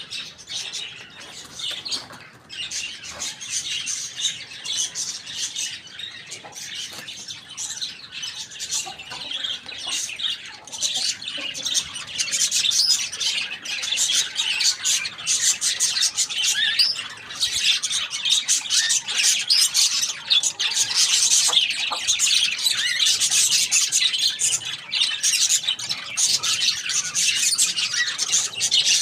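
A flock of birds chirping and squawking continuously, with many short, high-pitched calls overlapping; the chatter grows louder and denser about twelve seconds in.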